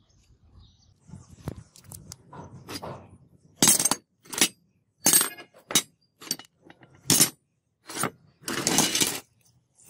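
Rusty scrap steel clanking as pieces in a pile are shifted and a leaf spring is lifted out: a string of about ten sharp metallic clinks and clanks, ending in a longer rattle.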